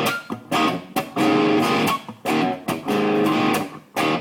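Electric guitar played through a Marshall TSL (JCM2000 Triple Super Lead) amp on its crunch channel: overdriven chords strummed in short, choppy bursts with brief gaps between them.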